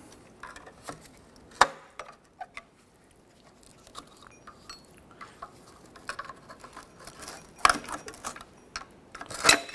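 Scattered metal clinks and scrapes as a pry tool works the parking-brake drum off a wheel hub, with a sharp clink about one and a half seconds in and louder knocks near the end.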